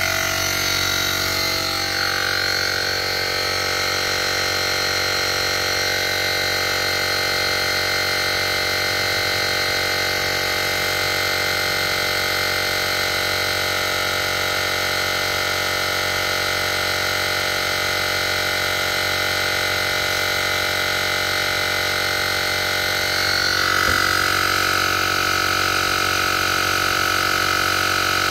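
Portable cordless digital air compressor running steadily while inflating a tire, still short of its 40 PSI cutoff. Its tone shifts and it gets slightly louder about 23 seconds in.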